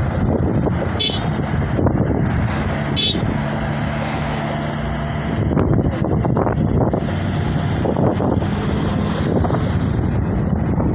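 A car driving along the road at speed: a steady engine hum with road and wind noise.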